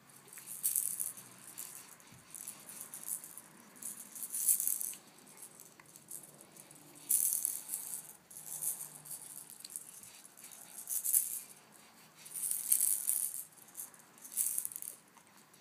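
A rattle being shaken in repeated bursts of quick shaking, with short pauses of a second or two between them.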